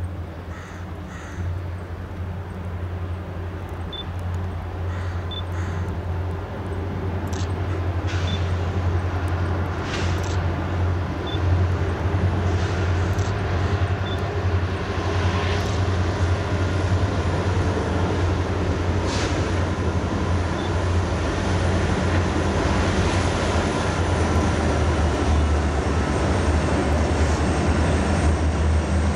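Loaded BNSF garbage unit train led by EMD SD60M and SD75I diesel locomotives, their 16-cylinder EMD 710 two-stroke engines running with a low drone that grows steadily louder as they approach and start across a steel truss bridge. Scattered sharp clicks run through it.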